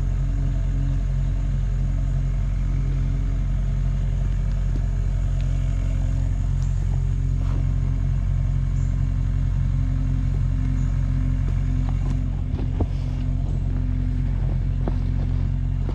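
A motor vehicle or machine engine idling steadily with a low, even hum, with a few faint knocks and clicks over it about three-quarters of the way through.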